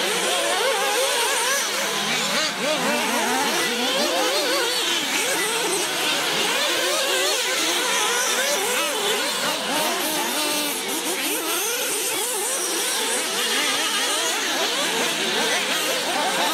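Several radio-controlled off-road buggies racing at once, their small high-revving motors whining and constantly rising and falling in pitch as they accelerate and brake around the track.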